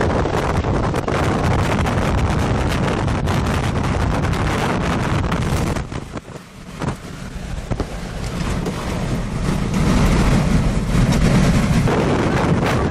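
Strong wind buffeting the microphone near a tornado: a loud, rushing rumble that drops off briefly about halfway through, then comes back stronger.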